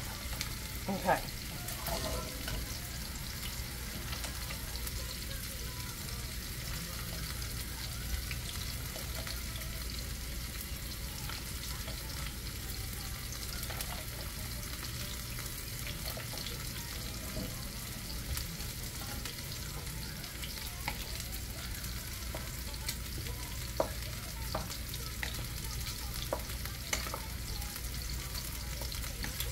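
Skillet of chicken, vegetables and broth sizzling steadily on a gas burner. Now and then a metal slotted spoon clinks against the pans as noodles are scooped in and stirred.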